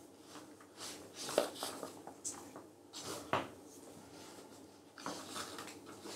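Quiet meeting-room tone with scattered small knocks, clicks and rustles of handling noise. The loudest come about a second and a half in and again just past three seconds.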